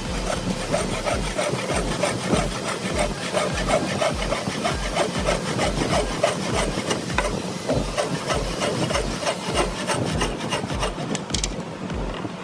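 Wood being worked by hand in a steady run of back-and-forth rubbing strokes, a few per second.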